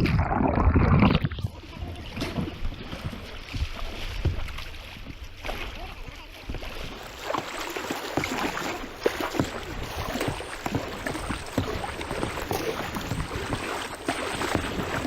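River water splashing and rushing around a kayak, loudest in the first second or so, then a steady wash of water broken by irregular small splashes and knocks.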